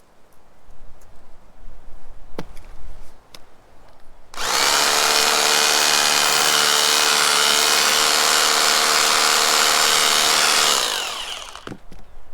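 Power drill running at full speed for about six seconds, then winding down as the trigger is let go. It is preceded and followed by a few sharp knocks.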